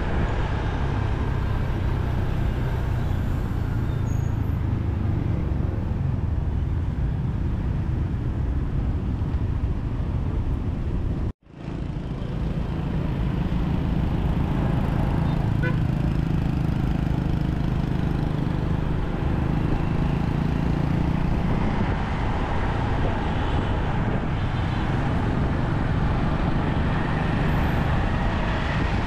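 Motorbike ride through city traffic: a steady rumble of engine, road and passing traffic. About eleven seconds in the sound cuts out abruptly, then fades back up.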